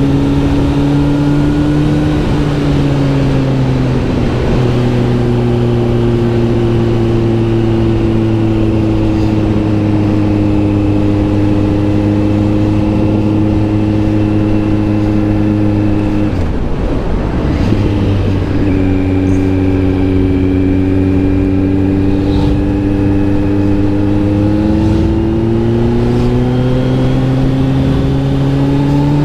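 Kawasaki Z900 SE inline-four engine running through an SC Project S1 exhaust while riding, mostly at a steady pitch. The engine note drops at a gear change a few seconds in, breaks off and drops again about two-thirds of the way through, and climbs near the end as the rider accelerates.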